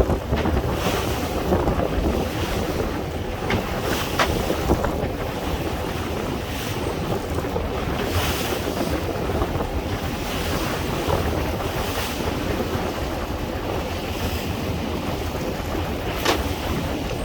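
Sea waves washing on a shore, with wind blowing across the microphone and rumbling. A few brief sharp ticks stand out about four seconds in and near the end.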